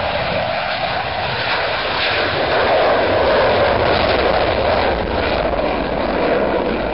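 Aircraft engine noise at an airshow, a steady loud rush that swells a little in the middle.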